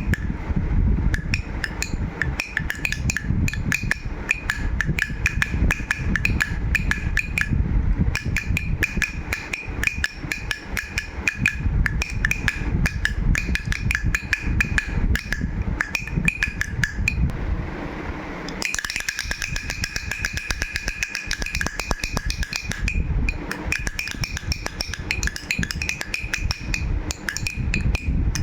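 Baby rattle shaken rapidly: a dense stream of small clicks with a light ringing tone running through it, the shaking easing briefly about two-thirds of the way in before picking up again.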